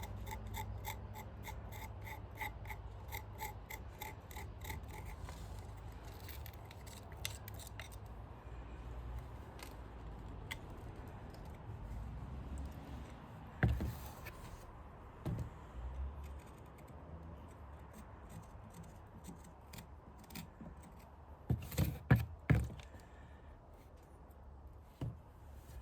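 Hand scraping at built-up grime on engine intake parts, a steady run of short strokes about three a second, which stops about eight seconds in. After that come a few scattered clinks and knocks of tools and parts, two sharp ones together past the middle.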